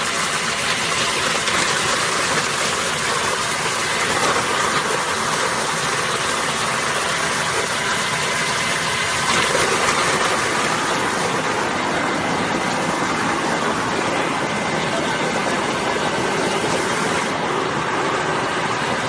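Coconut meat grinding machine running steadily: a loud, even mechanical din from its motor and crusher working.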